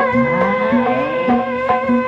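Sundanese kuda renggong accompaniment music: a reedy tarompet shawm melody over kendang drumming in the tepak tilu style, with strokes about twice a second and a drum pitch sliding upward early on.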